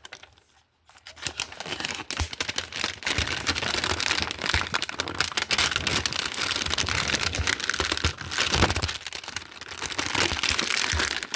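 Loud, dense crinkling and crackling of plastic shrink-wrap packaging being torn off and crumpled by hand, starting about a second in.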